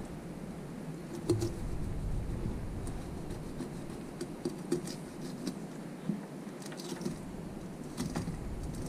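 Knife and whole tautog being handled on a wooden cutting board: scattered light taps, clicks and scrapes over a low steady hum.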